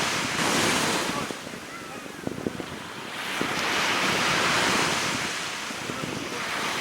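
Sea waves washing in and receding, the surge swelling twice, with wind noise.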